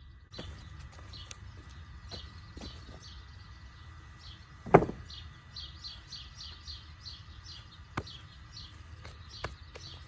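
Freshly sawn boards being handled and set down on the ground, with one loud knock of wood about halfway and a lighter one near the end, among small clicks. A bird chirps rapidly in the background through the second half.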